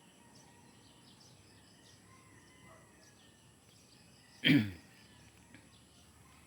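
Quiet outdoor background with faint bird chirps. About four and a half seconds in there is one loud, short sound, under half a second long, that drops quickly in pitch.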